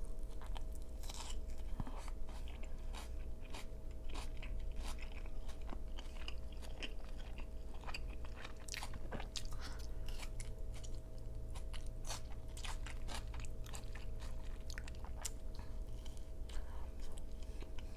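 A person chewing and biting into an Angus beef slider close to the microphone: irregular mouth clicks and bites throughout.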